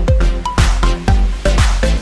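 Background electronic dance music: a steady kick drum about twice a second under a short-note synth melody.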